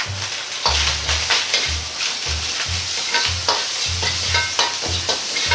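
Ground pork with doubanjiang, garlic and ginger sizzling in a hot Chinese wok while a metal ladle scrapes and knocks against the wok about two to three times a second, stir-frying it.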